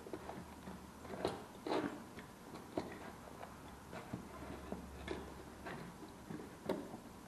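Irregular small clicks and knocks of a metal electrical box and its cable being handled and pushed into a cut-out in drywall, a few of them sharper taps.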